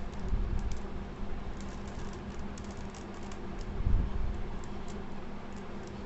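Plastic stickerless 3x3 Rubik's cube being turned by hand, its layers snapping round in a quick, irregular run of clicks and clacks, with a heavier knock about four seconds in.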